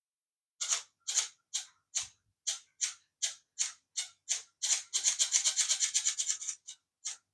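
Small DC steering motor and gearing of a toy RC snake buzzing in short bursts, about three a second, run directly off a small LiPo battery at about 4 volts; around five seconds in the bursts come close together and nearly run on, then two short ones near the end.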